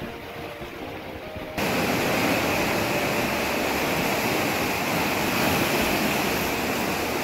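Sea surf breaking and washing over rocks at the shoreline, a steady rushing noise that turns suddenly louder about a second and a half in.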